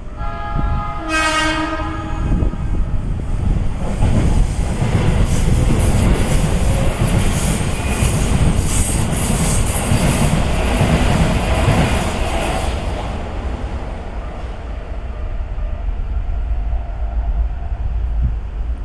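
A Keikyu Main Line train sounds a short horn blast about a second in. It then passes over the level crossing with a loud rush of running noise and rapid wheel clatter over the rail joints for about eight seconds, fading away after that.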